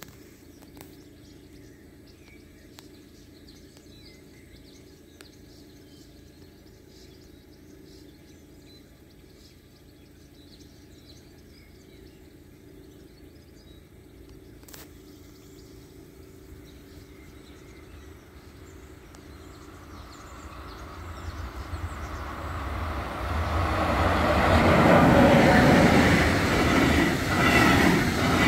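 Freight train approaching and passing: faint at first, then a rising rumble from about twenty seconds in that turns loud as the train reaches the crossing. Near the end the wheels of the empty stake wagons roll and clatter over the rails.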